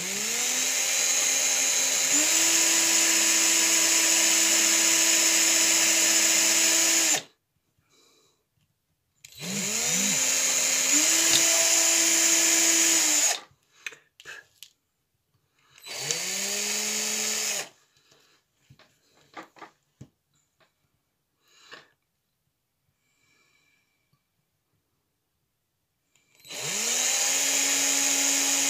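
Cordless drill with a thin bit boring holes through boilies (hard carp baits). It is run in several bursts, each a whine that rises as the motor spins up and then holds steady: one of about seven seconds, one of about four, and a short one. After a pause with faint clicks it starts up again near the end.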